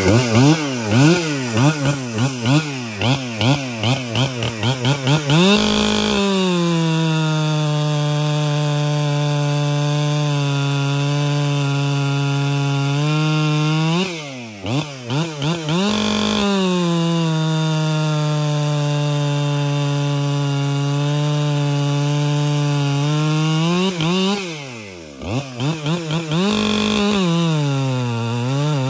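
Large professional chainsaw on a 24-inch bar, blipped up and down several times and then held at full throttle. Its pitch sags slightly as it loads in the cut. It bucks a big log in two long cuts of about eight seconds each, with quick revs between them, and begins a third cut near the end.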